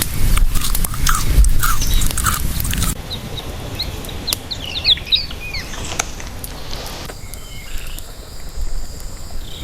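Outdoor ambience in three abrupt sections: a low rumble with clicks and short chirps, then scattered bird chirps, then a steady high insect trill for the last couple of seconds.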